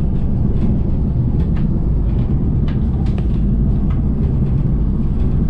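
Mount Washington Cog Railway coach rumbling steadily as the train descends the mountain, heard from inside the coach, with scattered light clicks and rattles.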